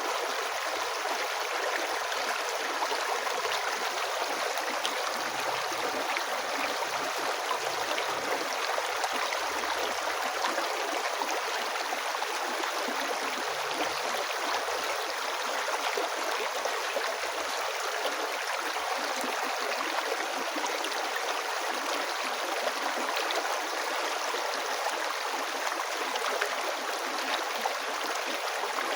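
A river flowing and burbling steadily over stones, an even rushing sound with little low rumble.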